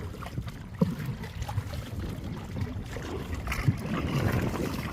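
Water sloshing around a small boat on choppy lake water, with wind rumbling on the microphone and a couple of short knocks, one about a second in and one near the end.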